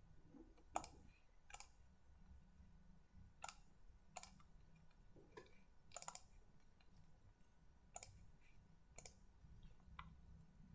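Faint computer mouse clicks: about eight short single clicks, spaced a second or two apart, with a quick double click near the middle.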